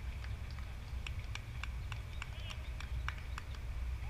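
Open-air ambience at a baseball field: a steady low rumble with scattered sharp clicks a few times a second and faint distant voices.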